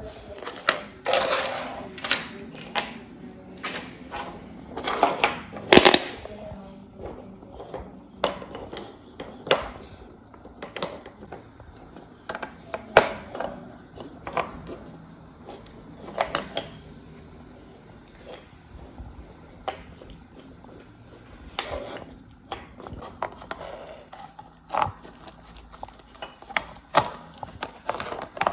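Wooden toy train track pieces and wooden blocks clacking and knocking as they are handled and set down on a hard floor, in irregular clusters of sharp clicks.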